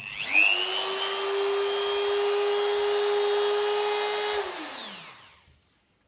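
Dremel 3000 rotary tool run free at full speed with a small disc on a mandrel pushed right up into the collet, so the accessory spins true. It spins up quickly to a steady high whine, holds for about four seconds, then winds down and fades out as it is switched off.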